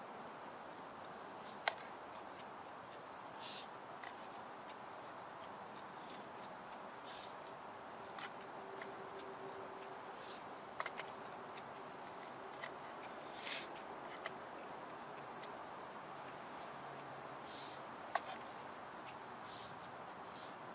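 Chopsticks clicking and scraping against a metal mess tin while eating, a scattering of light clicks and a few short scrapes over a faint steady hiss.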